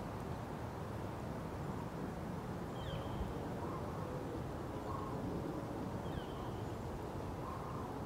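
Steady low rumble of outdoor background noise, with a few faint, short bird calls, most clearly about three and six seconds in.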